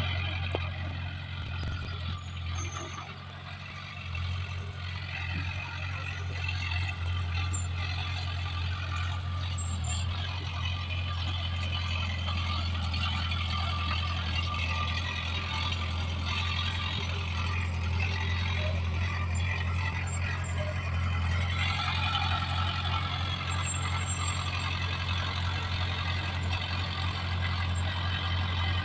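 Komatsu D20PL bulldozer working, its diesel engine running with a steady deep drone and higher-pitched squealing and clatter over it.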